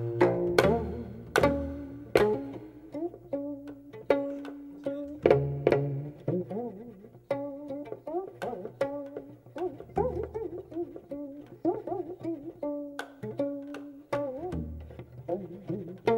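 Geomungo sanjo: a Korean six-string zither plucked and struck with a bamboo stick. The notes are slow and spaced, and many bend and waver in pitch after the attack. A few deeper low notes sound among them.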